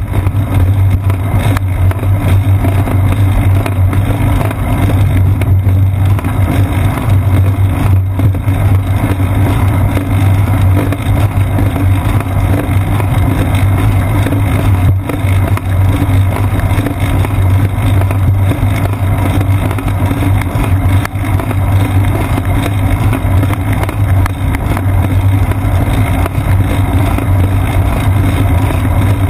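Wind and road noise from a bicycle in motion, picked up by a GoPro Hero 2 clamped to the seat post: a loud, steady rush with a constant low hum underneath.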